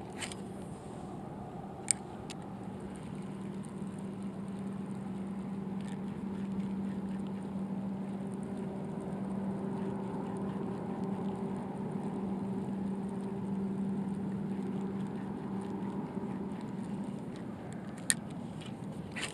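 A distant engine drones steadily, swelling through the middle and then easing off. A sharp click sounds about two seconds in and another near the end.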